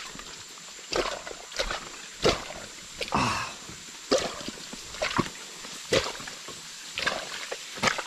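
Someone walking along a muddy rainforest trail: footfalls and heavy breathing, a short scuff or puff about once a second.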